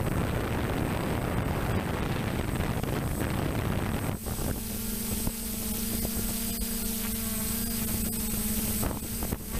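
Wind buffeting the microphone of a camera carried on a flying DJI F550 hexacopter for about the first four seconds. After that the drone's motors come through as a steady hum.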